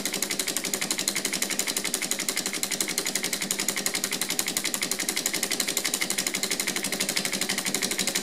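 3D-printed Stirling engine with glass syringe cylinders running with a rapid, even ticking. It is still warming up, freed of its earlier stiffness and gaining speed.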